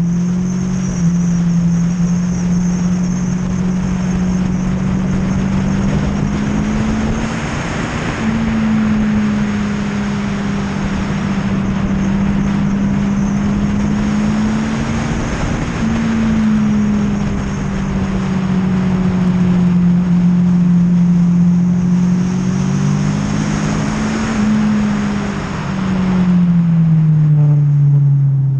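Yamaha R1 inline-four sport-bike engine heard onboard at speed, its note climbing and dropping as the bike accelerates, shifts and slows for corners, with a sudden drop in pitch about eight seconds in and a falling run of lower notes near the end. A steady wind rush runs under it, swelling twice.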